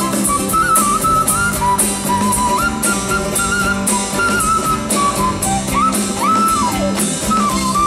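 Live band in an instrumental break: a small end-blown wooden flute plays the lead melody, with a smooth rise and fall about six seconds in, over guitar and a steady drum beat.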